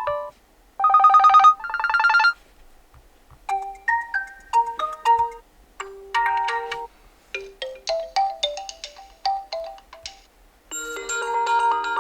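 OPPO A16s smartphone playing its built-in default ringtones through its speaker, one short preview after another with brief gaps between them. A fast trilling ring comes about a second in, then several melodic electronic note patterns.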